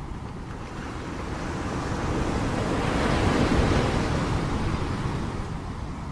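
Ocean surf: one wave rushing in, swelling to its loudest about three seconds in, then fading.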